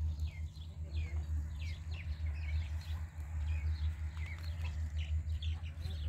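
Birds chirping over and over, short falling chirps several times a second, over a steady low hum.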